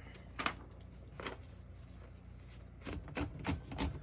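Sharp mechanical clicks from handling a 1940 Corona Comet portable typewriter's mechanism: two single clicks in the first second or so, then a quick run of about five clicks near the end.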